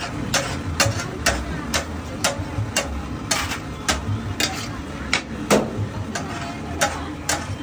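Metal spatula clacking and scraping on a large flat tawa as pav bhaji is stirred and spread, in a steady rhythm of about two strikes a second.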